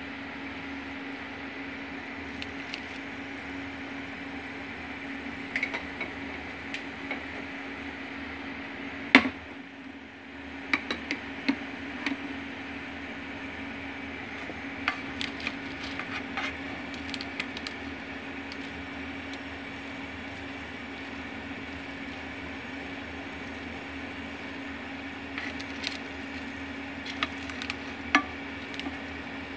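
Scattered knocks and clinks of kitchen utensils and cookware over a steady hum, the loudest knock about nine seconds in.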